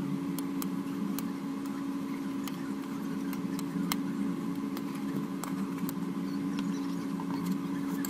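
A steady hum of a running motor, with scattered light clicks over it.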